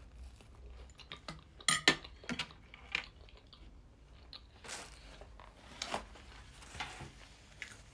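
Close-miked mouth sounds of a person chewing a bite of jam-spread toast: moist chewing with irregular small crunches and clicks, a few of them louder.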